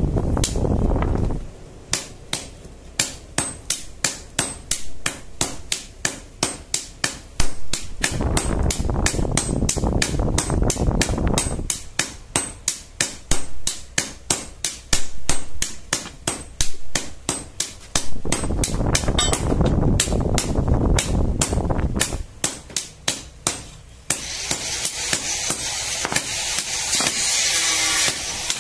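Hand hammer striking steel on an anvil in steady runs of about two to three blows a second, forging a cutting blade for a tobacco-chopping machine. The runs are broken by stretches of a steady rushing noise, and near the end a harsher hiss takes over.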